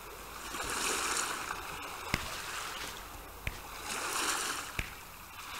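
Sea waves washing in, a soft hiss that swells and falls away twice, with a few small clicks between.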